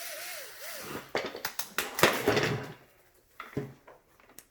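Small cordless electric screwdriver running in two short bursts, backing out screws, with clicks and light rattles of screws and plastic parts between and after.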